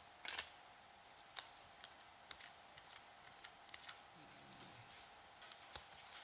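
Trading cards being handled and sorted: scattered light clicks and soft snaps as cards are slid and set down.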